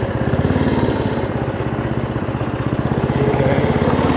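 Hot rod tractor's engine running steadily as it drives, with a fast, even firing pulse that gets a little louder near the end.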